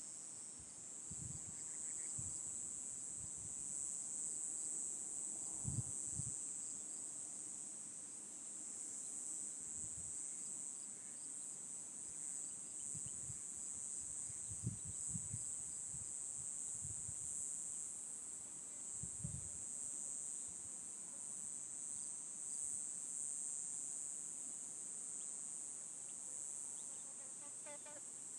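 Steady high-pitched insect chorus, like crickets, running without a break, with scattered soft low thumps and a few faint chirps.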